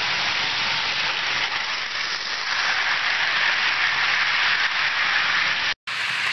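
HO scale model train rolling past close by on plastic roadbed track: a steady rushing rattle of wheels on rails and the small locomotive motor. It drops out briefly near the end, then a similar rolling sound carries on.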